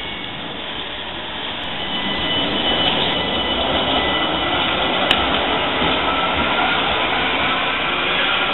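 PCC tram running on street track as it moves off up the street: a steady, noisy rumble with a faint high steady tone over it and a single sharp click about five seconds in.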